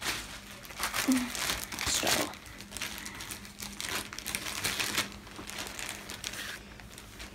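Dry rustling and crinkling of hair and clothing being handled as a braid is plaited, in irregular bursts that die away near the end.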